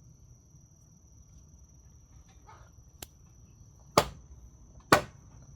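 Two loud hammer blows on timber about a second apart near the end, driving a wooden frame joint home, after a faint click.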